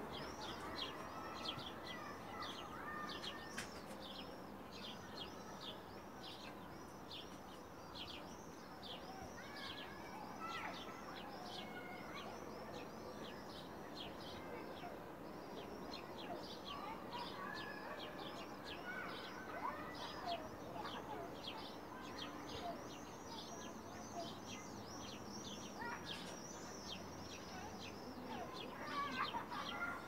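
Small birds chirping continuously, an unbroken run of quick high chirps several a second, with scattered lower calls among them.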